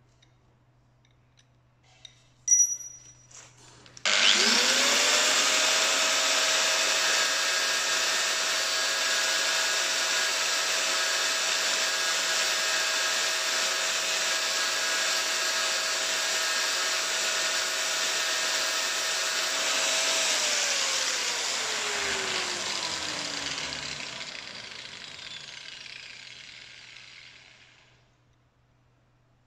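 An angle grinder spins up about four seconds in, after a sharp knock, and runs steadily as it grinds the edges of a steel Torx T55 bit, thinning it so it fits down onto a cylinder-head bolt. Near twenty seconds in it is switched off and winds down, its pitch falling as it fades away.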